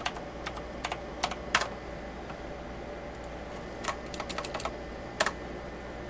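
Keystrokes on an EagleTec KG010 mechanical keyboard: a handful of separate clicky key presses, a pause of about two seconds, then a quick run of keys and one last press.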